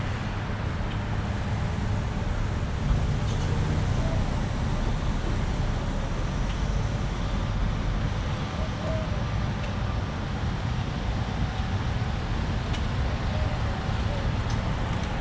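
Street ambience: a steady low rumble of passing car traffic.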